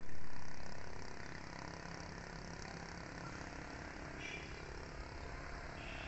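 Steady low rumble and hiss of a vehicle in motion. It starts louder and settles within the first second and a half.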